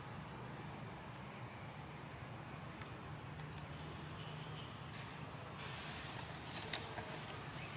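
A short, high, rising chirp repeating about once a second, over a low steady hum, with a few sharp clicks about six to seven seconds in.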